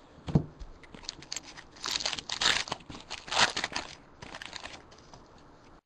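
Crinkling and rustling of a foil trading-card pack wrapper being handled and torn open, in irregular bursts, with a soft knock about half a second in.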